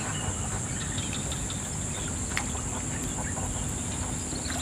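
Insects droning steadily at a high pitch, over a low steady rumble of outdoor background noise.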